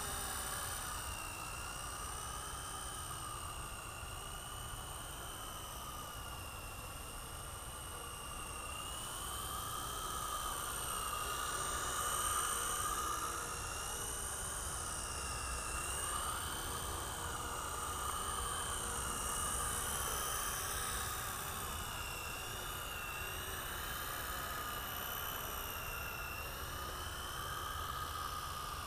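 Blade 120 S micro RC helicopter flying low: the steady high whine of its electric motors and spinning rotors, its pitch wavering up and down as the throttle changes.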